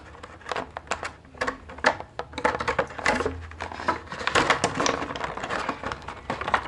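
Clear plastic blister packaging crinkling and crackling in irregular clicks as a toy figure is handled and worked loose from it.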